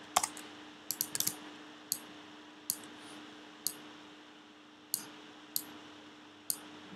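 Single sharp clicks of a computer mouse, about a dozen of them spaced irregularly, with a quick cluster about a second in, over a faint steady hum.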